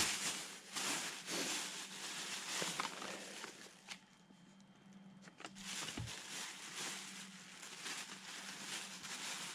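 Clear plastic bag rustling and crinkling as packaged parts are rummaged for and pulled out of it. The rustling pauses briefly about four seconds in, and a soft knock follows shortly after.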